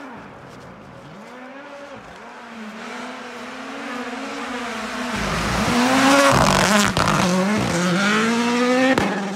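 Ford Puma Rally1 rally car's turbocharged engine revving up and dropping back through gear changes, growing louder as the car approaches at speed. There is a sharp crack about seven seconds in and another near the end.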